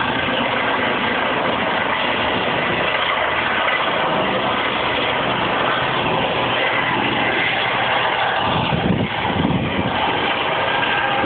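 Eurocopter helicopter's turbine engines and rotor running at takeoff power as it lifts off and climbs away. The noise is loud and steady, with gusts of low rumble near the end.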